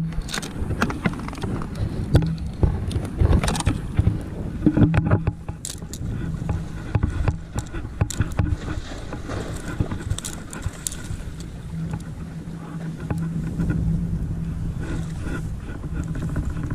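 Water splashing and slapping at the foot of a concrete breakwater as a hooked black sea bream is played and netted, with knocks from handling the rod and landing net. A steady low hum comes and goes underneath.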